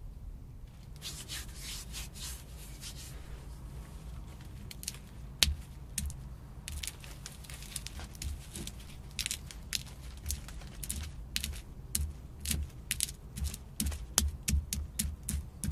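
Stone pestle pounding acorns in a basket hopper mortar: sharp cracks as the nuts break, each with a dull thud of stone on stone. The strokes are sparse at first and come quicker and more regularly, about two or three a second, in the second half.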